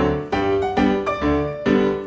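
Background piano music: a steady run of chords and bass notes, a new note about every half second.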